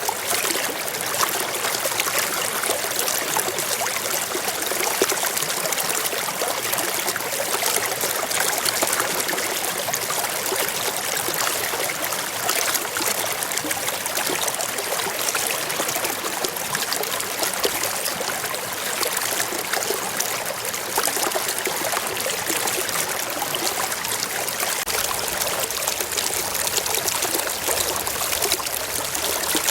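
Small stream running and trickling over rocks in a steady, unbroken flow.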